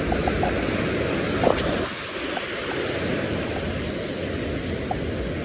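Surf washing on the beach, with wind rumbling on the microphone, and one short, slightly louder sound about a second and a half in.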